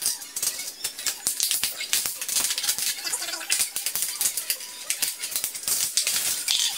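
Box cutter cutting through a thin plastic bottle, with dense crackling and clicking of the plastic.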